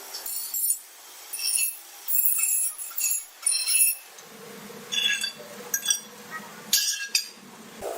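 Steel clinking and ringing in about nine short, irregular strikes, metal on metal.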